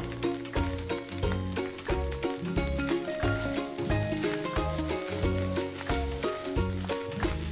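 Fried rice sizzling in a hot kadhai as it is tossed and stirred with a spatula, under background music with a steady beat.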